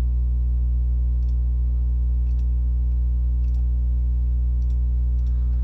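Steady electrical mains hum with a ladder of overtones, loud under everything. A few faint computer-mouse clicks sound about a second apart over it.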